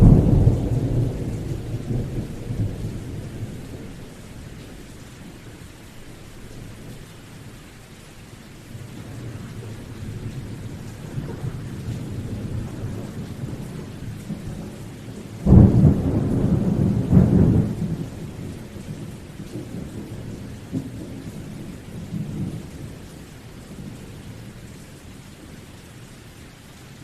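Thunderstorm: steady rain with two close thunderclaps, one right at the start and one about two-thirds of the way in, each a sudden loud crack followed by a low rumble that dies away over several seconds, with softer distant rumbling between them.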